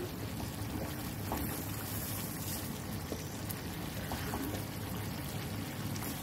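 Stuffed eggplants and chopped tomato sizzling and bubbling in their own juices in a frying pan, with a few light clicks of a spatula as they are turned.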